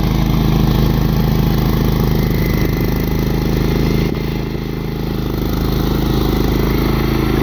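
Case garden tractor's engine running steadily under load, driving a front-mounted snow blower that is throwing snow. The level dips slightly about halfway through.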